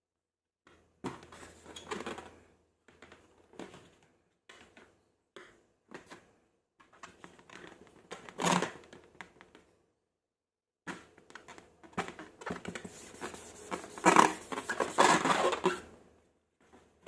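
Close-miked slime and balloon handling: irregular sticky crackles and clicks, with louder squishing around 8 seconds in and again for a couple of seconds near the end.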